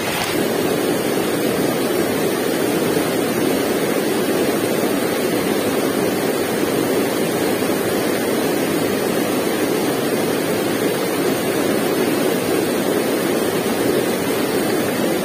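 White water of a small river cascade pouring between boulders, a loud, steady rushing that never lets up.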